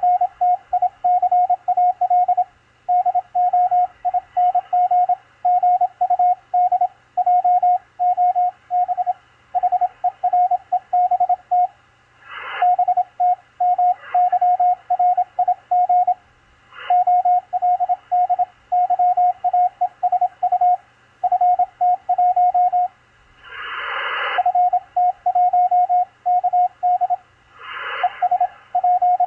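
Morse code (CW) signal on the 20-metre amateur band from a Machilite DSP SDR receiver: a single tone keyed rapidly into dots and dashes over a background of hiss. A few short bursts of noise cut across it, the longest a little past two-thirds of the way through.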